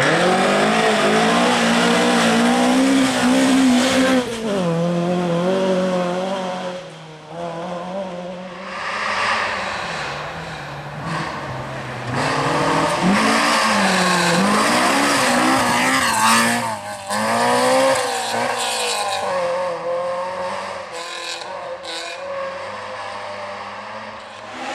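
Rally cars at full throttle on a gravel forest stage, passing one after another; the engines rev hard, pitch climbing and dropping back again and again through the gears. The first car arrives loud right at the start.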